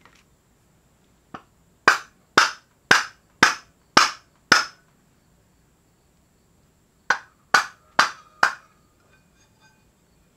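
Mallet blows on a golf-cart driven clutch to knock a stuck part loose: one light tap, then six hard strikes about two a second, a pause, then four more. The part is stuck where it should have slipped off easily.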